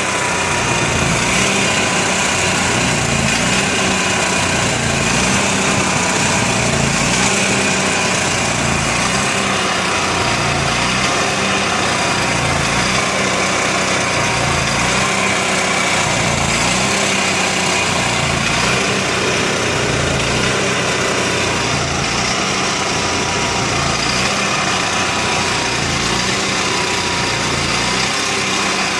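Onan MicroQuiet 4000 RV generator running with an uneven, wavering pitch that dips and recovers every couple of seconds: a rough idle that persists with a clean carburettor, new air filter, steady fuel flow and a near-new spark plug.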